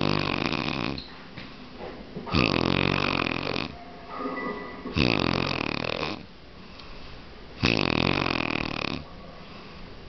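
A person snoring very loudly: four long, rasping snores, one about every two and a half seconds, with quieter breathing between them.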